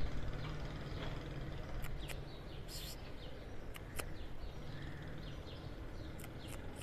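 Outdoor background noise with small birds chirping on and off and a low steady rumble, broken by a few sharp clicks.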